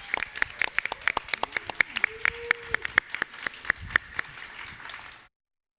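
Audience applauding with many separate, distinct claps. The sound cuts off abruptly about five seconds in.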